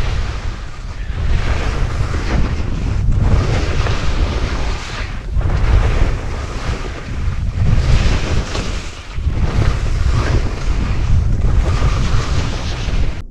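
Skis scraping and carving turns on firm, wind-scoured snow under heavy wind noise on the microphone, the rush swelling and easing with each turn.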